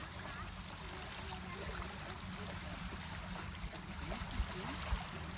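Choppy lake water washing and lapping against a stony shore, with a steady low wind rumble on the microphone and two short low thumps about four and a half seconds in.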